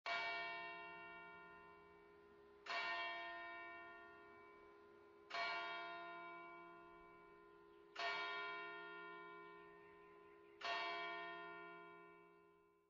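A bell tolling five times, evenly spaced about two and a half seconds apart, each stroke ringing on and fading slowly before the next.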